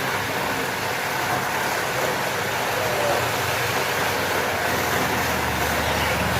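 Motor of a carpet-washing machine running steadily under a constant hiss; its low hum grows stronger near the end.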